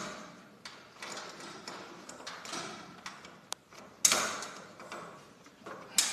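Metal clicks, scrapes and knocks from turning a garage door cable drum on its torsion shaft to take up slack in the lift cable. Two louder clanks come about four and six seconds in.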